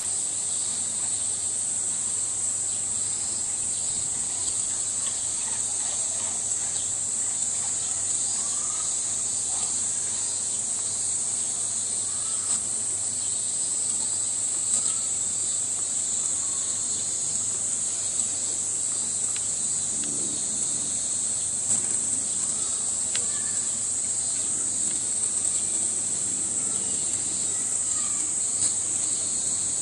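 Steady high-pitched chorus of summer cicadas, unbroken throughout, with a few faint crunches as a Japanese black bear bites into a block of ice with apple frozen inside.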